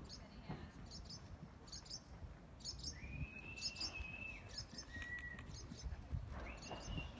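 Birds singing faintly: short high chirps repeating about once a second, with a longer whistled note a few seconds in and another near the end.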